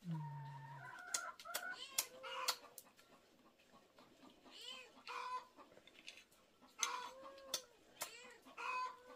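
Chickens clucking in short, repeated calls, with a few sharp clicks between them.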